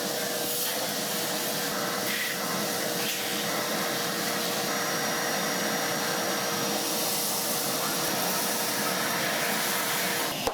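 A vacuum cleaner running steadily with a constant whine, sucking the debris out of a robot vacuum's dustbin; it cuts off abruptly at the end.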